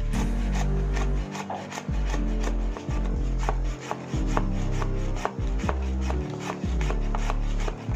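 Kitchen knife slicing shallots on a wooden cutting board: a run of quick knife strikes against the board, about three a second.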